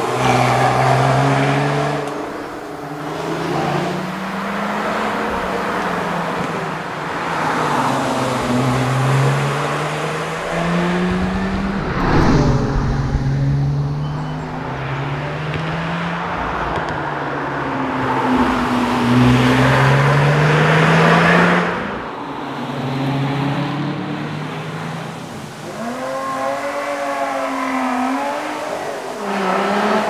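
Lotus Exige Sport 350's supercharged 3.5-litre V6 driven hard. The engine pitch climbs again and again through the gears, dropping between climbs for shifts and braking, with rising and falling revs near the end.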